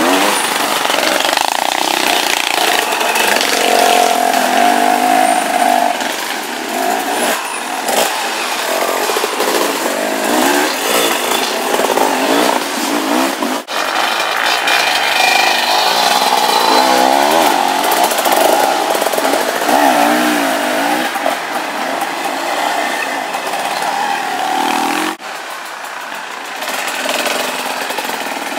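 Several enduro dirt bike engines revving up and easing off, rising and falling in pitch as the bikes pass one after another. There are brief sudden breaks about halfway through and again near the end.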